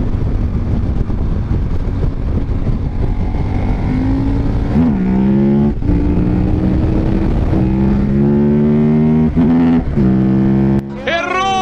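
A remapped KTM 1190 Adventure's V-twin engine revving hard on the throttle as the bike lifts its front wheel into a wheelie. Its note holds high with several brief drops in the throttle.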